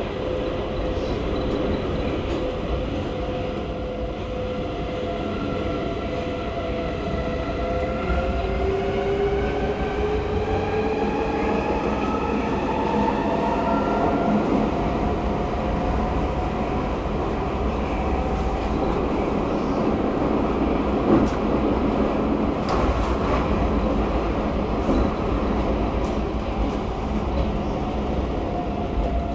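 Stockholm metro train heard from inside the carriage while running: a steady rumble of wheels on track, with an electric motor whine that rises in pitch between about eight and fourteen seconds in as the train picks up speed.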